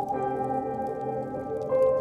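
Slow ambient music of layered, sustained tones, with a new, higher note entering near the end. Faint crackling from a wood fire sits underneath.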